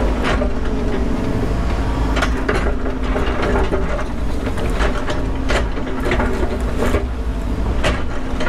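Volvo 140 crawler excavator's diesel engine running steadily while it digs, with irregular clanks and knocks, about eight or ten of them, from the bucket and tracks working in rock and dirt.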